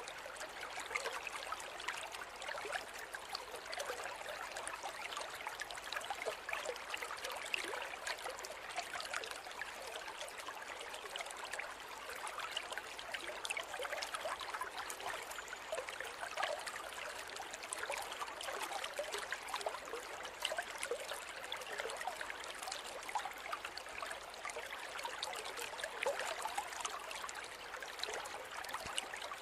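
A forest river or stream flowing steadily, a continuous rush of water with fine babbling and splashing detail.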